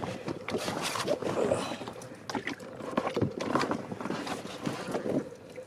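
Irregular knocks and scuffs of a man clambering from a yacht's stern down into an inflatable dinghy alongside.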